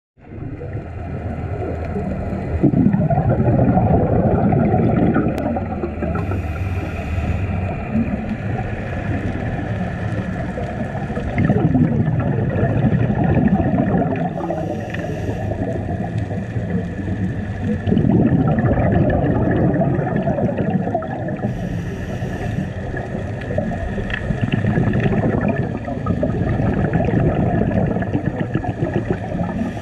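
Underwater sound picked up through a camera housing. Bubbling surges swell and fade about every six to seven seconds, and each is followed by a short hiss, the rhythm of a diver breathing. A faint steady drone runs underneath.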